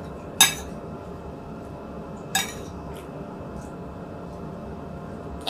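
Eating utensils clinking against a plate: two sharp clinks about two seconds apart, then a few lighter taps, over a steady background noise.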